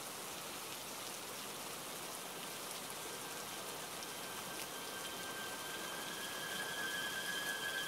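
Steady hiss of rain falling on the flooded river and wet ground. A thin, high whistling tone comes in about halfway through and grows louder toward the end.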